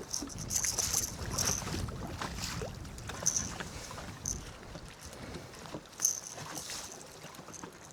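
Gusty wind buffeting the microphone, with a rumble that eases after the first couple of seconds, and water lapping and slapping against a small fishing boat in short splashy bursts.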